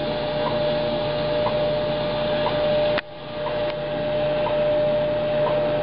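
A World War II BC-224E aircraft receiver's speaker playing the WWV time station on 10 MHz AM: a steady tone with a short tick every second over shortwave static. About three seconds in there is a click, and the static drops away briefly before building back.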